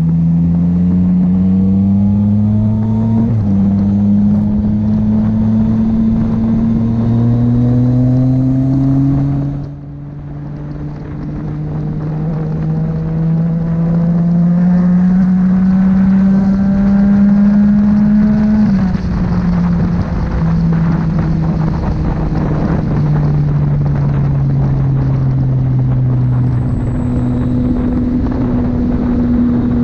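Yamaha MT-09's inline three-cylinder motorcycle engine under way, its pitch climbing slowly and dropping suddenly at each upshift, about three, ten and nineteen seconds in, then running at a steadier pitch.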